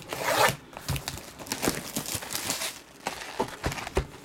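Box cutter slicing through the shrink-wrap on a cardboard trading-card box, then the plastic wrap crinkling and tearing as it is pulled away, with a few light clicks near the end.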